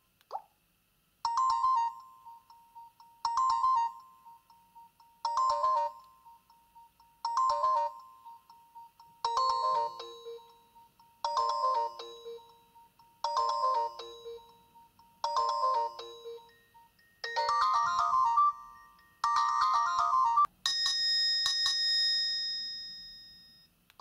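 Nokia 225 4G ringtone previews playing through the phone's small speaker. After a single click, a short electronic chime phrase repeats about every two seconds. Near the end a busier phrase gives way to a long ringing tone that fades away.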